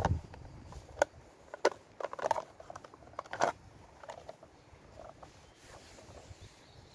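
Handling noise from a folding pruning saw and its clear plastic case: scattered clicks and light knocks as the saw is taken out of the case and its blade is swung open.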